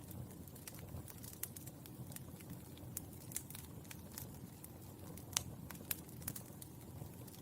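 Burning charcoal crackling: irregular sharp pops and ticks over a soft low hiss, with two louder pops a little past the middle.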